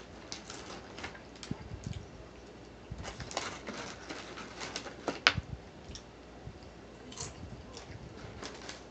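Close-miked eating sounds: scattered mouth clicks and chewing mixed with the crinkle of a paper food wrapper as bits of a cheesesteak are picked from it, with one sharp click about five seconds in.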